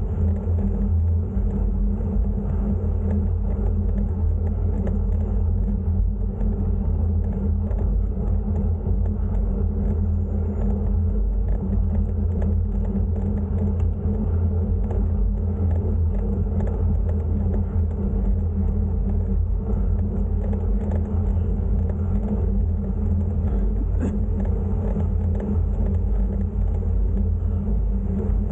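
Steady low rumble of wind buffeting the microphone during a bicycle ride, unbroken and even in level.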